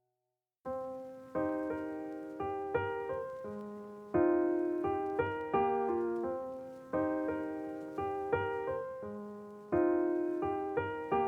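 Background music on a piano-like keyboard: chords struck and left to decay, in a short phrase that repeats, starting after about half a second of silence.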